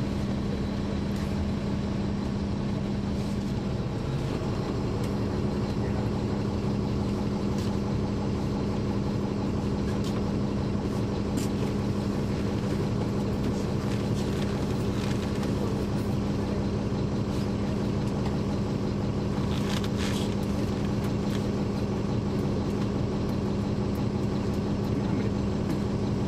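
Caterpillar C13 ACERT diesel engine of a NABI 40-foot transit bus, heard from inside the rear of the bus, idling steadily at one even pitch. A few short clicks and rattles come through over it.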